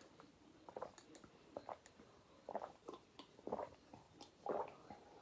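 A person gulping water as fast as he can, a string of short, faint swallows about one a second.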